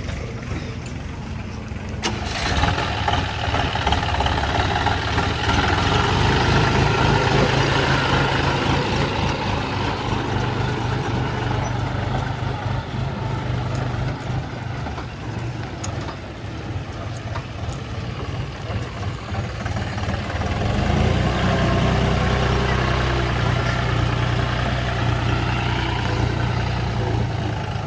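Diesel engine of a JCB 3DX backhoe loader running under working load. It revs up sharply about two seconds in, eases off, and revs up again about two-thirds of the way through.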